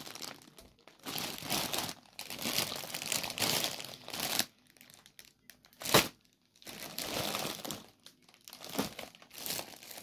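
Plastic grocery packaging crinkling in several bouts as bagged items are handled and moved. A single sharp click about six seconds in is the loudest sound.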